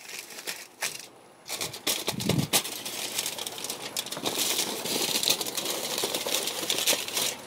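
Aluminium foil crinkling and crackling as it is folded over the edge of a drip tray, with a brief lull about a second in.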